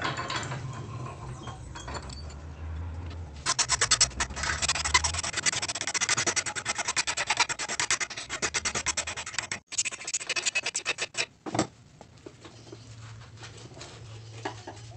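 A flat hand file rasps across a small part clamped in a bench vise. A fast run of filing strokes starts about three and a half seconds in, breaks briefly near ten seconds and stops about a second and a half later.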